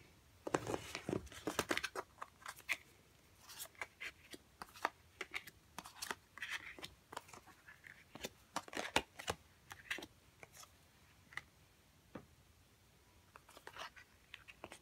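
Tarot and oracle cards being turned over and laid out one by one on a cloth-covered table: an irregular scatter of soft taps, flicks and slides as the cards are handled and placed.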